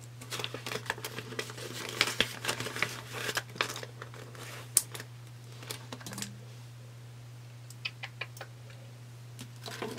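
Paper banknotes and a clear plastic binder pouch rustling and crinkling as cash is handled and slipped into the pouch, with small clicks. Busy for the first half, then only a few scattered rustles.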